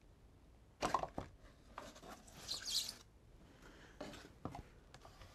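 Quiet unpacking sounds: a few light knocks and clicks, and a brief rustle of packing foam and box, as a figure is worked out of a foam-packed box.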